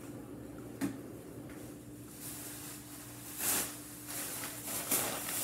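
Grocery bags and packaging rustling a few times as items are handled and taken out, with a small click about a second in, over a faint steady hum.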